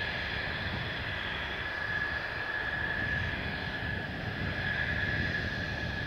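Mitsubishi F-2 fighter's single F110 turbofan running at taxi power: a steady high whine over a low rumble, swelling slightly a few times.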